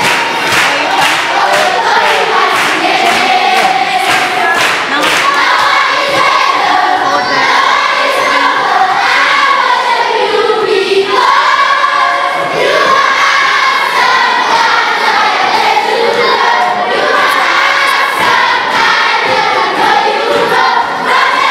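A large group of children singing together, with hand clapping in time through the first few seconds.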